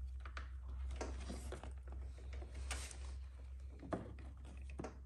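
Generator control panel being handled and pressed back into its housing: scattered light clicks and plastic rubbing as wires are tucked behind it, with a slightly sharper tap about four seconds in, over a steady low hum.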